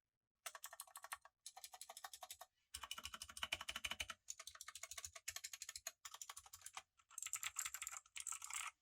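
Fast typing on a Motospeed CK62 mechanical keyboard with clicky blue Otemu switches: quick runs of sharp clicks, broken by brief pauses every second or two.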